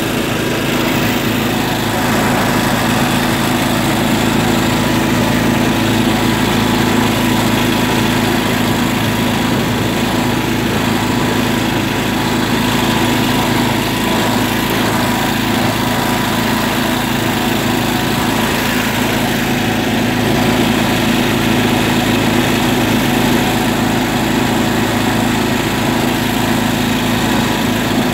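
John Deere tractor engine running steadily as the tractor drives along a sandy track.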